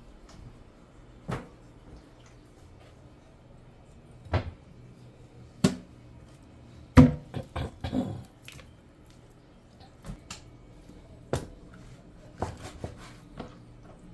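Kitchen handling sounds while raw chicken is cleaned and cut: about a dozen scattered knocks and clicks of a knife, bowls and hands against a plastic cutting board and a steel sink. The loudest is a quick cluster about halfway through.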